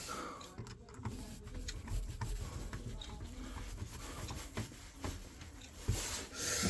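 Hands working on electrical wiring: scattered small clicks, taps and handling noises, with a brief rustling rasp near the end.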